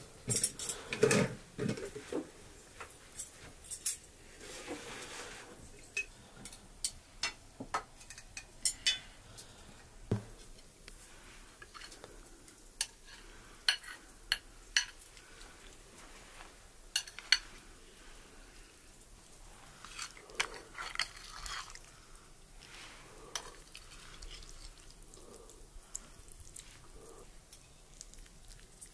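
Cutlery and dishes clinking: scattered light clicks and taps at irregular intervals, with one duller knock about ten seconds in.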